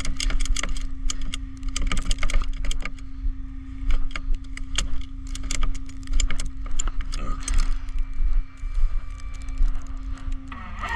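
Irregular metallic clicks and clinks of tow chains and hooks being handled while a car is unhooked from a flatbed tow truck, over a steady hum that stops near the end.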